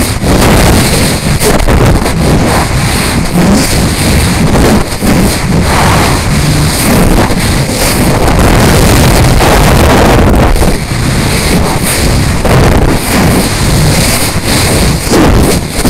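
Loud wind rushing and buffeting over the microphone of a Mobius camera riding in a high-power rocket's upper payload section as it descends under parachute. The noise surges and dips unevenly with no engine or motor tone.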